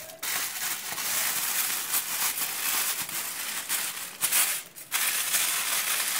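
Aluminium foil crinkling and crumpling as hands fold and press it closed around a parcel of pork ribs. The rustling runs almost unbroken, with two short pauses, one at the very start and one just before five seconds in.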